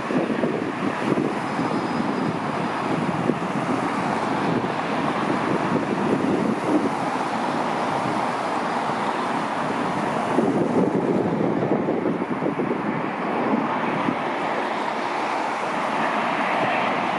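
Wind buffeting the microphone over a steady, rushing outdoor rumble, swelling a little about ten seconds in.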